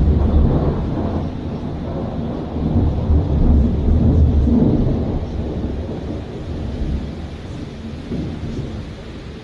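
Rolling thunder rumbling over steady rain. It is loudest at the start, swells again about three seconds in, and fades toward the end.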